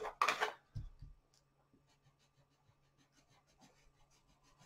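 Coloured pencil scratching on paper in quick, faint, repeated colouring strokes. A brief sharp noise and a soft thump come within the first second.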